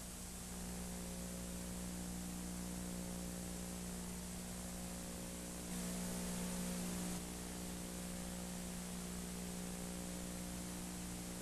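Steady electrical hum over hiss, the background noise of an old videotaped recording, with no other sound. The hum gets a little louder for about a second and a half midway through.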